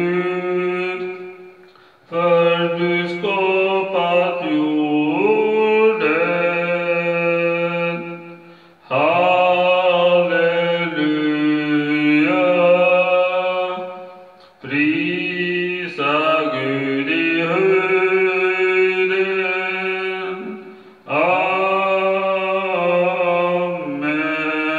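A man singing a Swedish praise song in four long phrases, with short breaks for breath between them.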